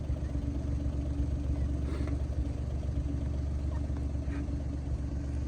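A motor vehicle's engine running steadily at idle, a constant low hum.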